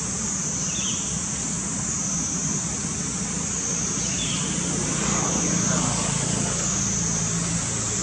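Steady outdoor background: a low engine hum from a vehicle under a continuous high-pitched drone, with two faint short chirps about one and four seconds in.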